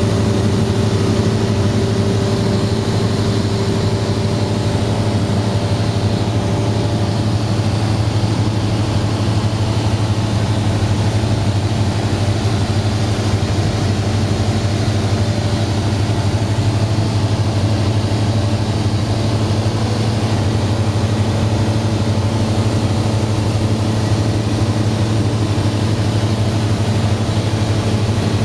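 Cessna 172's piston engine and propeller running steadily in cruise flight, heard from inside the cabin as a constant low drone.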